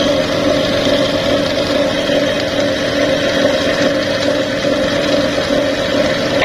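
Juki LBH-781 buttonhole machine's drive motor running steadily with its flat belt turning on the free pulley, a constant mechanical hum with one steady tone. The level dips slightly at the very end.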